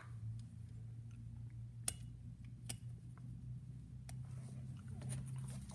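A few small, sharp metal clicks and taps as the parts of a phonograph motor are handled, with a short cluster of them near the end, over a steady low hum.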